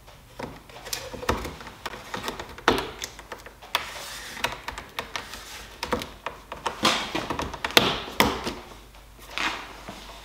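A thin wooden strip handled against a wooden slab: irregular taps, knocks and short scrapes as it is bent into place and moved.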